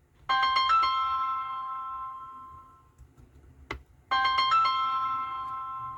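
An electronic chime tune sounds twice, about four seconds apart. Each time a quick run of bell-like notes rings out and fades away, and a sharp click falls between the two.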